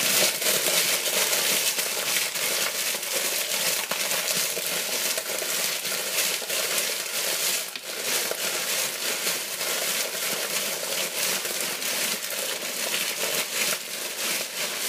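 A bag of potato crisps being squeezed and crushed by hand: the plastic packet crinkles and the crisps inside crunch and crackle without pause.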